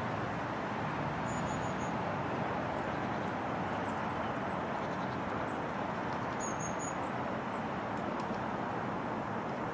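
Steady distant road-traffic hum, with a few faint, high, short bird chirps in three small clusters.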